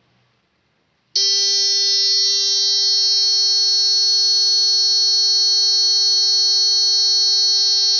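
Electronic buzzer of a homemade water-sensor rain alarm sounding a loud, steady buzzing tone that starts abruptly about a second in and holds without a break. It is the sign that the sensor has detected plenty of water.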